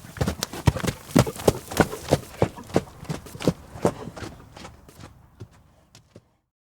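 Horse hooves clip-clopping on a hard surface at a quick, uneven gait, about three to four hoof strikes a second, fading out and stopping about six seconds in.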